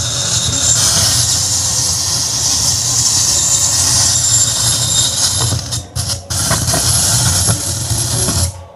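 A Yamaha PSR-S750 keyboard's speakers give out a loud, steady rumbling noise, a hiss with a low hum beneath, instead of any music: its audio circuit is damaged, which the technician puts down to unstable voltage from a diesel generator. The noise breaks up briefly about six seconds in and cuts off just before the end.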